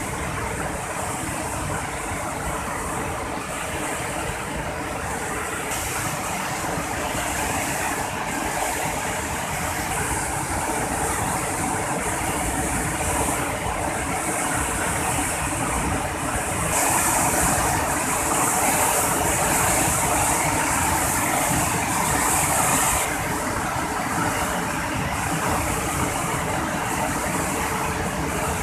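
Floodwater of a swollen river churning through the open gates of a barrage: a steady, dense rush of water, louder for several seconds in the middle.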